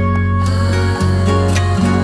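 Instrumental background music, with bass notes changing about once a second.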